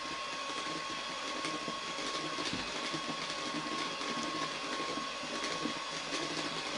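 Electric hand mixer running steadily, its beaters churning through thick chocolate cake batter in a bowl, with a constant motor whine.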